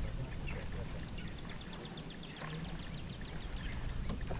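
A quick run of short, falling, high-pitched animal calls over a low rumbling background, with a few sharp knocks.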